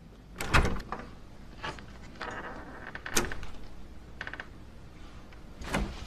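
A door being unlocked and opened: a loud clack about half a second in, a rattle of handle and latch, a sharp click about three seconds in, and a thud near the end.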